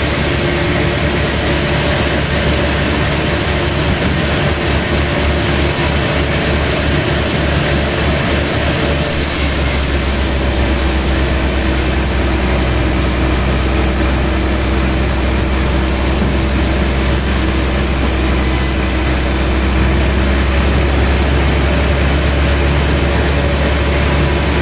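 Sawmill machinery running steadily under a heavy engine's low drone, which changes about ten seconds in and then holds steady.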